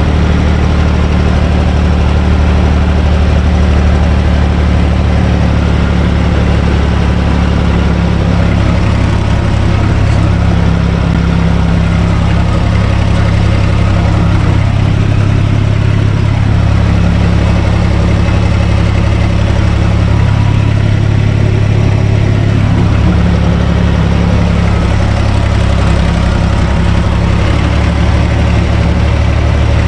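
Diesel engine of a U445 DT 4x4 tractor running steadily under load while it pulls a rotary tiller through garden soil, heard from the driver's seat in the cab.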